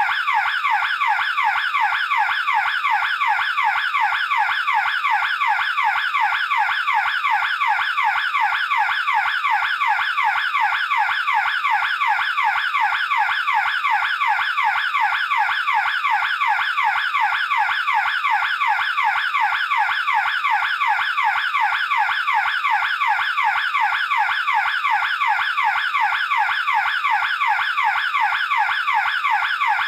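Burglar alarm siren sounding without a break: a loud electronic tone sweeping in pitch over and over, several quick sweeps a second.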